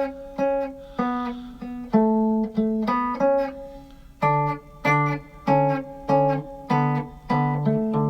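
Guitar played fingerstyle: a thumb-picked bass note on each beat, about twice a second, with melody notes plucked above it.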